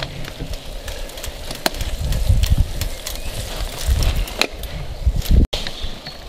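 Mountain bike rolling over roots and dirt on a forest trail, with sharp clicks, knocks and rattles, and gusts of wind buffeting the microphone. The sound breaks off abruptly about five and a half seconds in.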